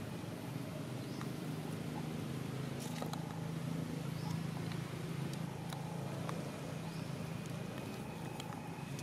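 A steady low engine drone that swells a little in the middle, with faint short chirps and clicks above it.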